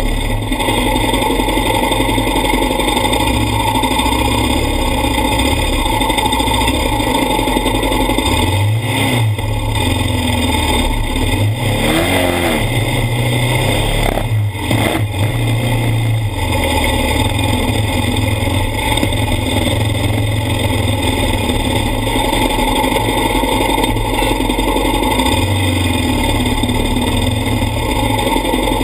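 ATV engine running under throttle across sand, its revs rising and falling a few times around the middle, over a constant rushing noise.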